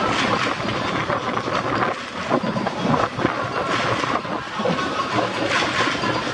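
Crowd noise from a large mass of football supporters: a steady, rushing wash of many voices that swells and eases.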